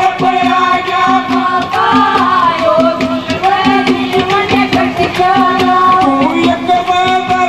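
Live Haryanvi folk devotional music (ragni/bhajan) played loud through a sound system: a sustained, wavering melody line over a steady rhythm of drum strokes about twice a second, with a man singing into the microphone.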